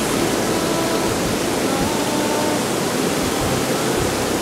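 Wide, fast river rushing over rapids: a steady, loud roar of water.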